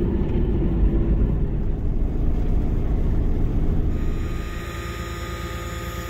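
Steady low rumble of engine and tyre noise heard inside a Ram truck's cab while it drives on a snowy road; the rumble eases somewhat a little past the middle.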